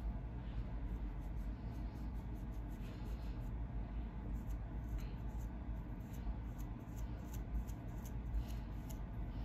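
Black plastic fine-tooth comb scratching across a dry, flaky scalp in many short, irregular strokes, raking up dandruff flakes, over a steady low hum.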